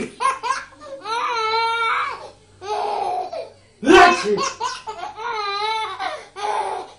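Baby laughing in repeated high-pitched giggles and belly laughs. A person's loud sneeze comes about four seconds in and sets off a fresh round of laughter.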